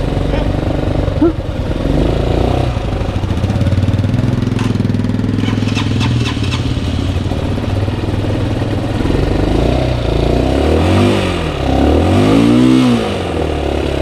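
Motorcycle engine idling steadily, with a few sharp clicks about five to six seconds in, then revved up and back down twice near the end.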